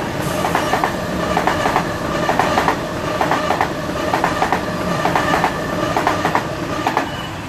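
Sydney Trains Waratah double-deck electric train passing through at speed: a steady rumble with rhythmic clickety-clack from the wheels over the rail joints, a group of clacks a bit under a second apart, one for each carriage going by. It fades as the last carriages pass near the end.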